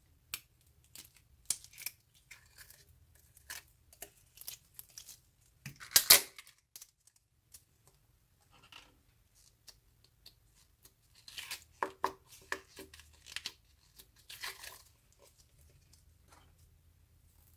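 Close-up slime-making sounds: irregular clicks, crackles and short tearing rustles, loudest about six seconds in, with a busy run of them near the end.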